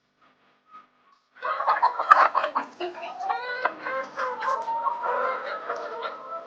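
A flock of layer hens clucking and calling, starting abruptly about a second and a half in, with many sharp clicks among the calls.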